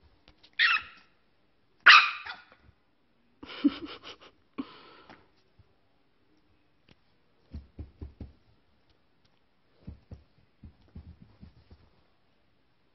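French Bulldog puppy giving a few short high-pitched barks in the first five seconds, the loudest about two seconds in. Later come soft low thumps and rustling.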